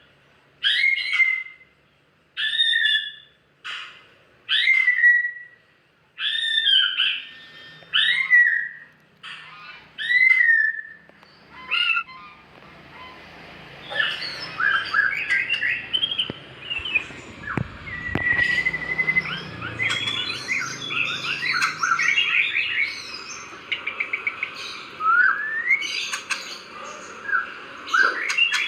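Caged songbird giving about ten loud, clear calls, each falling in pitch, one every second or so, then breaking into a fast, varied chirping song about fourteen seconds in. The cries are clear with no coughing, the sound of a bird recovered from a cough.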